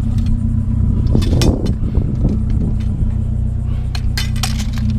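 A vehicle engine running steadily, with scrap metal pieces clanking and clinking as they are handled: a burst of clanks about a second in and sharper clinks near the end.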